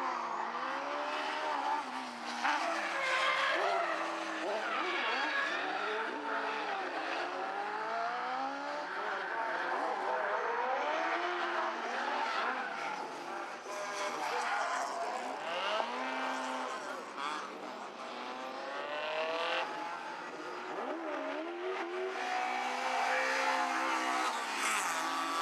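Rally car engine heard from inside the car, revving up and dropping back again and again as it accelerates, changes gear and brakes through the corners.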